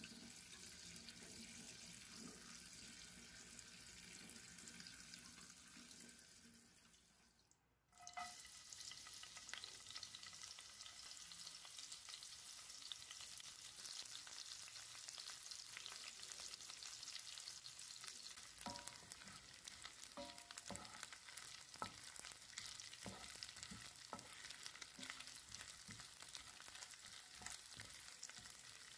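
Tap water running over dried anchovies in a mesh strainer, fading out about seven seconds in. After a short gap, dried anchovies frying in hot oil, sizzling and crackling steadily. A wooden spatula knocks and scrapes in the pan as they are stirred, most in the second half.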